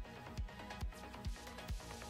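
Background electronic music with a steady, punchy kick drum beat, a little over two beats a second, under sustained synth notes.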